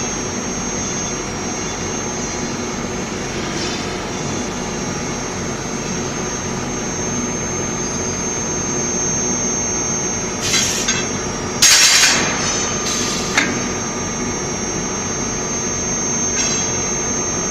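Induction heating furnace line running steadily, a constant machine hum with a high, steady whine. About ten to thirteen seconds in come three short, loud bursts of noise, the middle one the loudest.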